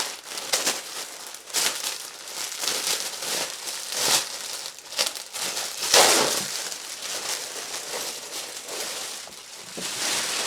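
Plastic packaging crinkling and rustling in irregular surges as it is handled and opened, loudest about six seconds in.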